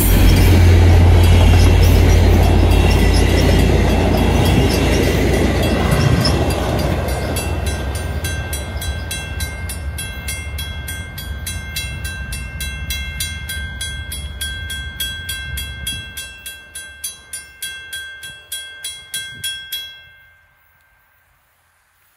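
VIA Rail passenger train of LRC cars rumbling past on the rails and fading into the distance, while the level-crossing bell rings steadily over it. The bell and the last of the train stop about 20 seconds in.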